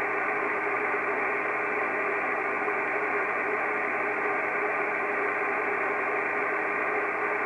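Kenwood TS-680S transceiver on 50.148 MHz giving a steady hiss of band noise between transmissions, with no station on frequency. The hiss is cut off above about 2.7 kHz by the receiver's narrow filter, and a few faint steady whistles sit in it.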